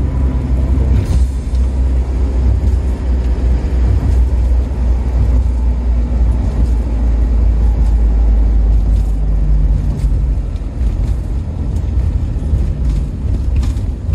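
Isuzu Panther diesel car heard from inside the cabin while driving: a steady low drone of engine and road noise, with a few light clicks in the last few seconds.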